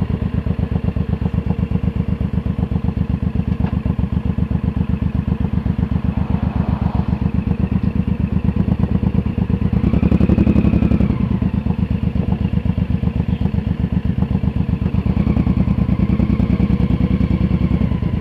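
Suzuki C1800R's big V-twin engine running at low revs as the motorcycle rolls slowly, a steady even throb. It gets louder for about a second around ten seconds in.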